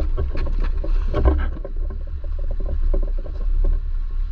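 Wind buffeting the microphone with a steady low rumble, over the scrapes and knocks of footsteps and gear on rock as a person in a wetsuit climbs down a steep rocky path.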